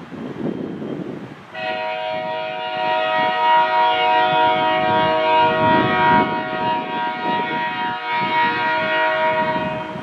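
Canadian Pacific locomotive air horn sounding one long, steady multi-note chord, starting about a second and a half in and cutting off just before the end.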